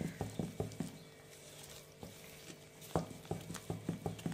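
Wooden spatula stirring thick cake batter in a glass bowl, knocking lightly against the glass in quick, regular strokes. The strokes ease off for about two seconds in the middle, then start again with a sharper knock.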